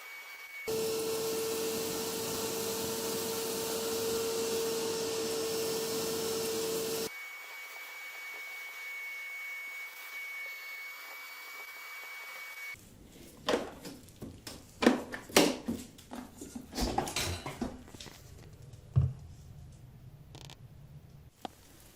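Construction vacuum running loud and steady with a constant hum as it sucks up an ants' nest, then a quieter steady whine for several seconds. In the last part comes a series of irregular knocks and clatter.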